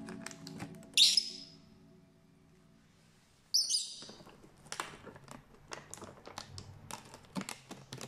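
Lovebird giving two short shrill chirps, about a second and three and a half seconds in, followed by a scatter of faint light clicks and crinkles as it picks at a plastic bag of kibble. A background music track fades out at the start.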